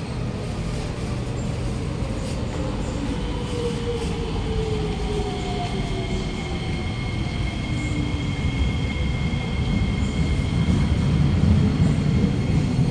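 Kawasaki-CRRC Sifang C151B metro train arriving at the platform and slowing, with a whine that falls in pitch and a steady high tone over most of the pass. The low rumble of the cars grows louder near the end as the train draws alongside.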